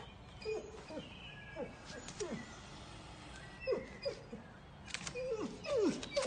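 A dog whimpering: a dozen or so short, quiet whines, each falling in pitch, coming in irregular runs with short gaps.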